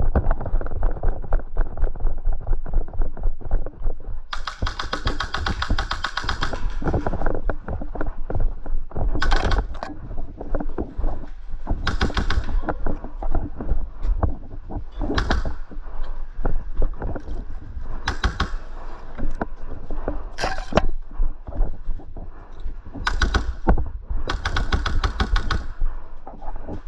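Airsoft guns firing: a long burst of rapid shots about four seconds in and another near the end, with shorter bursts between, over constant low knocks and rustling.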